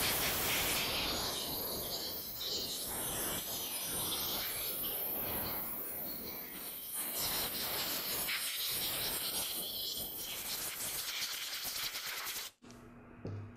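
Compressed-air blow gun hissing as it blows cleaning water off small carburetor parts just lifted from an ultrasonic cleaner, with a few short dips, cutting off abruptly near the end.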